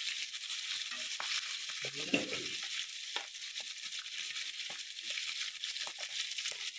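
Chicken feet deep-frying in hot oil in a kadai: a steady sizzling crackle, with scattered taps and scrapes of a slotted spoon turning the pieces in the pan.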